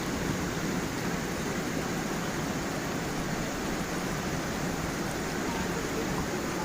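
A small waterfall and stream running over stones: a steady rush of water with faint gurgles.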